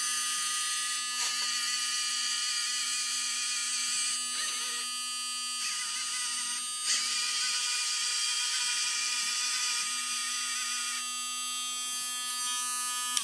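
Dremel rotary tool spinning with a steady high-pitched whine, joined by the whirring of the Lego machine's motors as they move the tool along its axes, so the sound changes character several times as the motors start and stop. It cuts off suddenly at the end as the tool is switched off.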